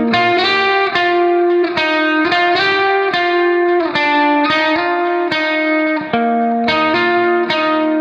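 Background music: a guitar melody of picked notes, each struck and then held, following one another at an even pace.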